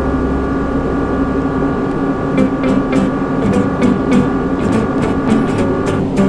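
Vintage ceiling fan running: a steady motor hum and whine, with a run of sharp clicks from about two seconds in.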